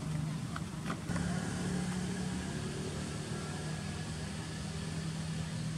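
Steady low motor hum, like an engine running, with two faint clicks within the first second.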